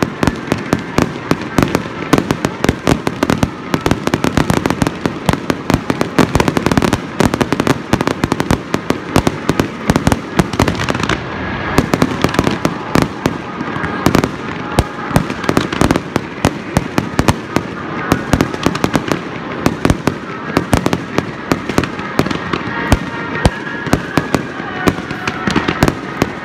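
Fireworks display: aerial shells and comets going off in a dense, nonstop run of sharp bangs and pops, many each second, over a steady rumble.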